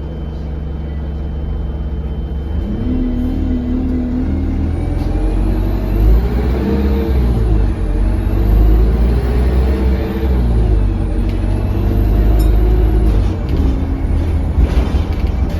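Alexander Dennis Enviro200 bus engine, heard from inside the passenger cabin, running steadily and then pulling away, its pitch rising and falling several times through the gear changes. A high turbo whistle rises and falls with the revs; the uploader puts it down to a turbo leak.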